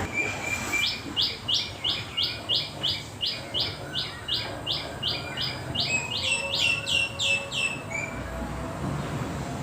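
A bird calling a long run of short, evenly repeated chirps, about three a second, for some seven seconds, with a second, higher series of chirps overlapping near the end.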